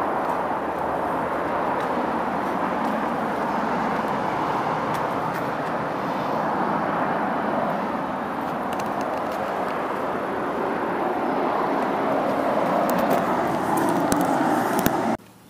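Steady rush of road traffic from the multi-lane road beneath a footbridge, the continuous tyre-and-engine noise of passing cars. It swells slightly near the end, then cuts off suddenly.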